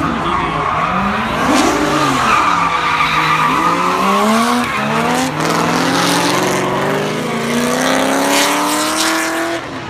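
Drift cars sliding sideways in a tandem run: engines revving hard in repeated rising sweeps over tyre squeal and skidding.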